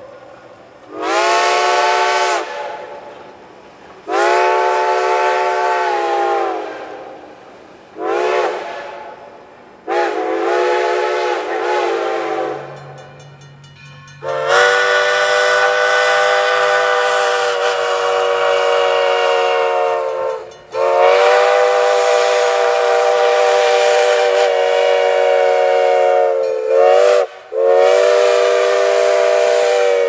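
Multi-chime locomotive steam whistles. First Reading 2102's whistle gives four separate blasts. Then, from about midway, Black River & Western No. 60's five-chime whistle (a replica of a Chicago, Burlington & Quincy chime) sounds two long blasts, a short toot and another long blast.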